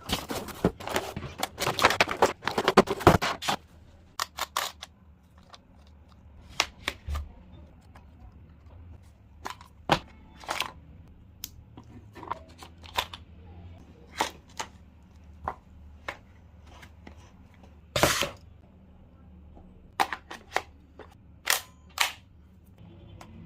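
Electric toy M16 gel blaster clicking: a quick, dense run of sharp clicks for about three seconds, then scattered single clicks and knocks spaced a second or more apart.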